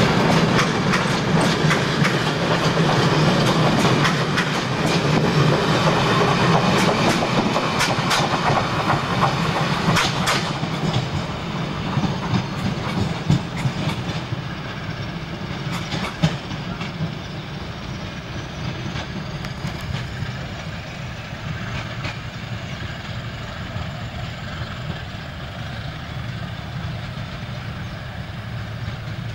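CP 1400 class diesel locomotive, with its English Electric 8SVT engine, running steadily as it pulls a train of coaches away, the wheels clicking over rail joints and pointwork. The sound grows fainter as the train draws away, and the clicking thins out in the second half.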